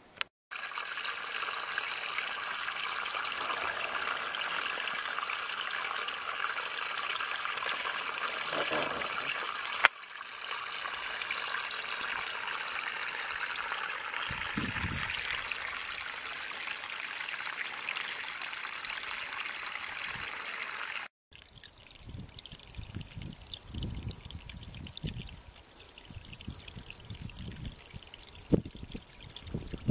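Shallow water trickling and running over mud and mineral crust, steady. There are cuts about ten seconds in, with a click, and about twenty-one seconds in; after the second the trickle is fainter, with low bumps beneath it.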